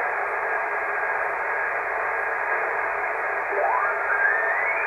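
HF amateur radio transceiver receiving the 20 m band in single sideband: steady static hiss, cut off above about 2.5 kHz, with faint steady tones. About three and a half seconds in, a whistling tone rises quickly in pitch as the tuning knob is turned, a signal sweeping through the receiver's passband.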